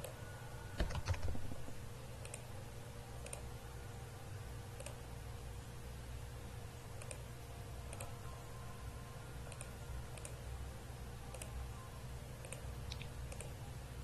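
Computer mouse clicking at irregular intervals, about one click a second, as wires are drawn in a circuit schematic program. A louder clatter of knocks comes about a second in, over a steady low hum.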